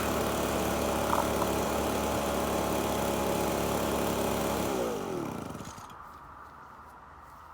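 Two-stroke petrol engine of a FUXTEC FX-LBS126P leaf blower running steadily at idle on its test run after a torn fuel intake hose was replaced, then shut off nearly five seconds in, its pitch sliding down as it winds to a stop.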